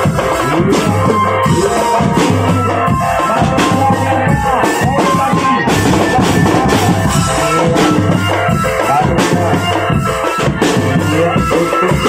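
Marching drum band playing: snare, tenor and bass drums beaten in a fast, dense rhythm over a sustained keyboard melody played through a horn loudspeaker.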